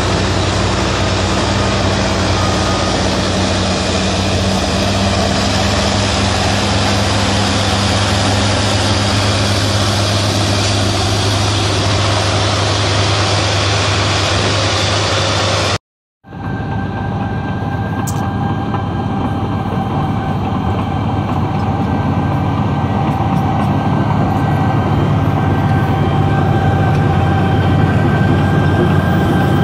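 Diesel engine of a John Deere 670G motor grader running steadily as it grades dirt, a low drone. After a short cut about halfway, a large Caterpillar crawler bulldozer's diesel engine running with a steady high whine over it, growing louder near the end.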